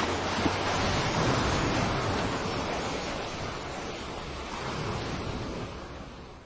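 Ocean surf: a steady rushing wash of waves that swells and eases slowly, then fades out near the end.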